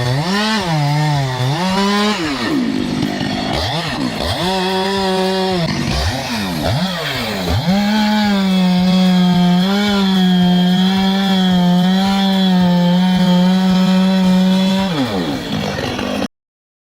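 Husqvarna 560X two-stroke chainsaw revving and cutting wood. The engine pitch dips and recovers several times, then holds steady at high speed for several seconds before dropping away and cutting off near the end.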